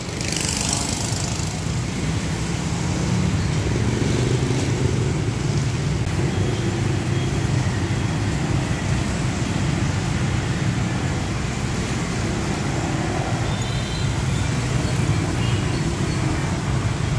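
Steady roadside traffic noise from motorbikes and cars running past.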